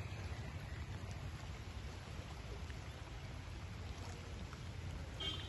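Steady low rushing noise of fast-flowing floodwater.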